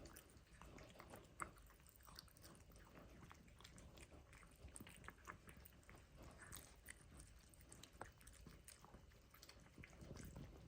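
A cat chewing and biting food, heard faintly as irregular small clicks and crunches.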